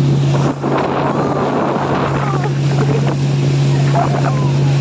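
Speedboat engine running steadily at speed, a constant low drone, with wind buffeting the microphone and water rushing past the hull.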